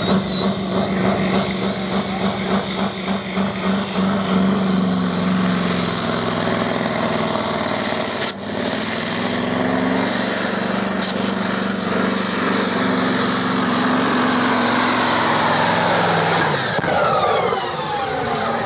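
A tractor-pulling machine's engine at full throttle, with a high whistle climbing in pitch over the first few seconds and then holding. Near the end the engine comes off the throttle and the whine falls away in pitch.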